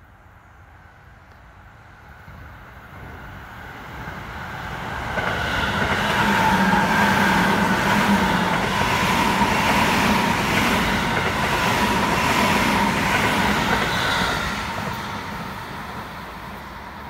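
A Seibu 6000 series electric commuter train passing at speed: it builds up over several seconds, is loudest for the middle stretch as the cars go by, with a steady whine from the motors over the wheel noise, then fades as it pulls away.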